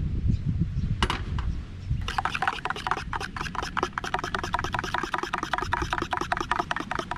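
Hot water poured from a stainless-steel saucepan into a mug. Then, about two seconds in, a metal spoon stirring the coffee, clinking rapidly against the inside of an insulated camp mug.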